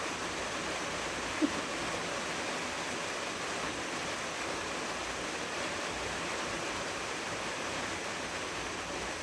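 Steady rain falling on a tin porch roof, an even hiss of drops. One brief tap stands out about a second and a half in.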